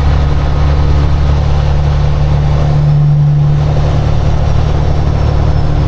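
Semi-truck's diesel engine running steadily at highway speed, heard from inside the cab as a low, even drone with road noise over it.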